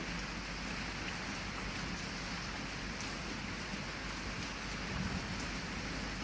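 Heavy rain falling steadily, pattering on a window and surfaces, with faint scattered drop ticks and no thunder.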